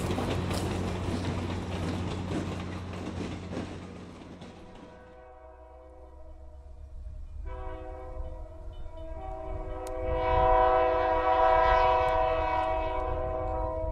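Passenger train passing close, a rumbling clatter with a low engine hum that ends about five seconds in. Then a diesel locomotive's multi-note air horn sounds in long blasts from a distance, growing louder toward the end.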